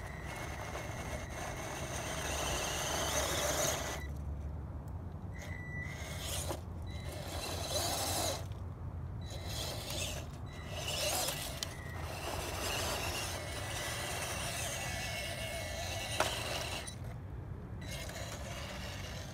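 1:16 scale RC crawler's 260 brushed electric motor and gearbox whirring in several bursts a few seconds long, with short pauses between throttle pulls as it climbs rock.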